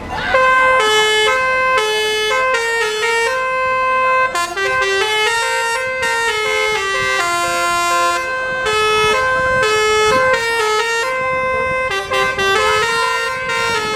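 Bus basuri 'telolet' musical horn playing a tune: a run of held horn notes stepping up and down in pitch, with short breaks between phrases.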